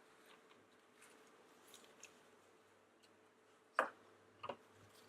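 Handling of a plastic surprise egg and its confetti: faint rustling, then two sharp plastic clicks a little under a second apart near the end.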